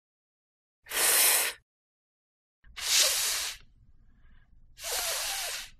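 The /f/ speech sound held as a long 'fff' hiss three times, each just under a second, with pauses between.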